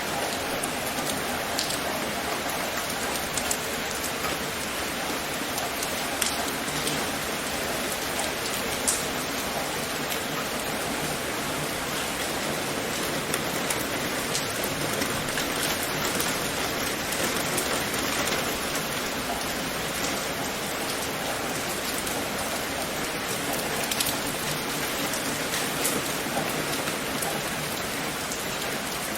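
Steady rain falling, an even hiss with close drops striking now and then as sharp ticks.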